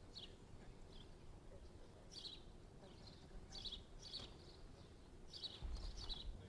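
Birds chirping faintly: short high chirps repeating every second or so over quiet outdoor ambience, with a brief low rumble near the end.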